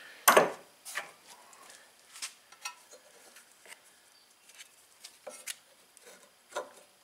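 A loud click, a bolt set down on a wooden workbench, then scattered light clicks and scraping as the sheet-metal blower housing of a Predator 212 engine is worked loose and lifted off.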